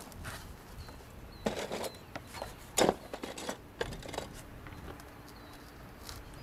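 Handling noise from foam pool coping pieces and plastic coping clips being moved and set: scattered knocks, rustles and scrapes, the loudest about three seconds in.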